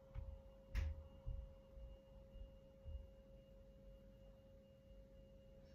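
Near silence: a faint steady hum-like tone with a few soft low bumps, and a single sharp click a little under a second in.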